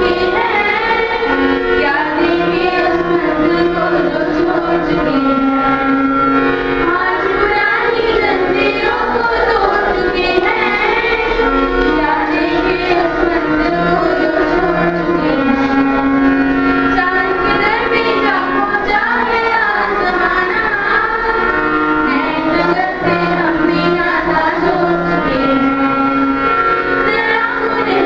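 A small group of schoolgirls singing a melodic song together into microphones, with long held notes that bend from pitch to pitch.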